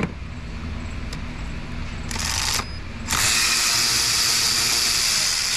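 Cordless electric ratchet loosening a 13 mm nut on an intake manifold bracket stud. It runs in a short burst about two seconds in, then runs steadily from about three seconds in.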